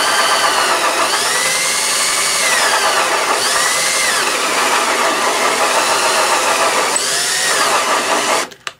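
Cordless drill turning a hole saw through a cedar board, the motor's pitch rising and falling as the saw bites and frees. It stops near the end as the drill's battery runs low.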